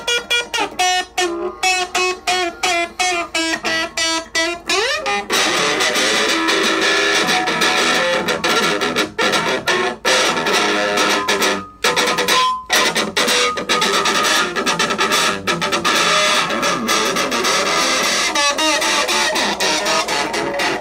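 Electric guitar played loud through a combo amp: fast single picked notes for about five seconds, ending in a rising slide, then distorted strumming with a few short breaks.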